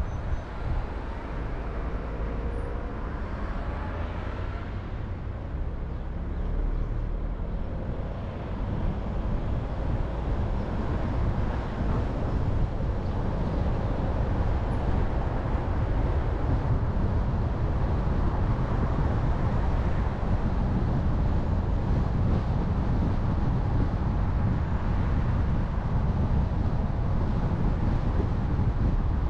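A car being driven on the road: steady low rumble of engine and tyre noise, a little louder from about ten seconds in.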